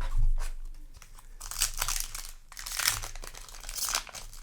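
Foil booster pack wrapper crinkling as it is handled, a dense run of crackles that starts about a second and a half in, after a low knock.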